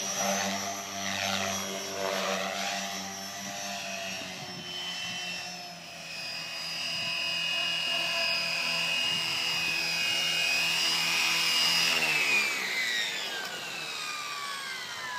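Gaui X4II electric RC helicopter in flight, its motor and rotor whine swinging up and down in pitch as it manoeuvres, then holding steady. About twelve seconds in, the whine falls away in a long downward glide as the rotor spools down after landing.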